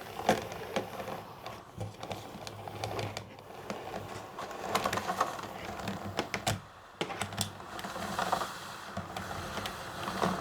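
Uhlmann fencing scoring reel being handled and wound by hand: irregular clicks and rattles from the drum and casing as it is turned an extra round to add tension to the newly fitted spring.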